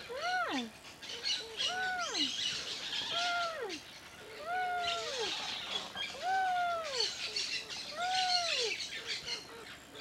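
An animal calling over and over, six arched calls that rise and then fall, one about every second and a half, with birds chirping in the background.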